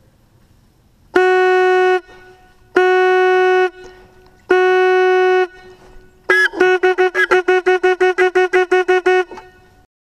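Hunting horn blowing a signal on one note: three long blasts, then a fast run of short blasts, about six a second, for some three seconds.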